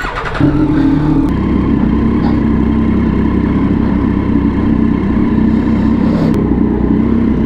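Motorcycle engine running loud and close at a fairly steady pitch, cutting in abruptly.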